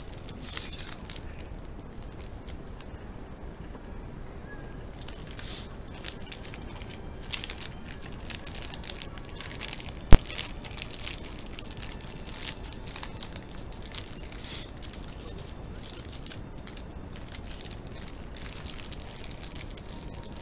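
Plastic bread wrapper crinkling and rustling as it is handled, in scattered short crackles, with one sharp, loud click about halfway through.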